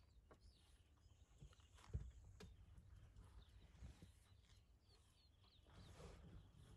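Faint sounds of a lioness tearing and chewing at a buffalo carcass: small clicks and rustles, with one sharper knock about two seconds in. A few faint bird chirps come and go.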